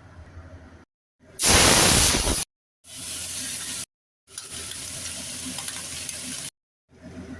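Food stir-frying in a hot pan, sizzling, in several short clips cut together with brief silences between them. The first clip, about a second in, is the loudest burst of sizzle.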